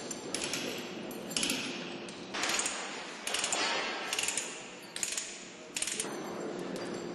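Steel lifting chains and hooks rattling and clinking in short bursts, about one a second, as rigging is handled, over a faint steady hum.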